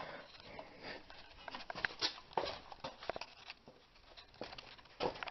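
Faint, irregular clicks and taps of hand tools working on the lower ball joint's castle nut as it is tightened down.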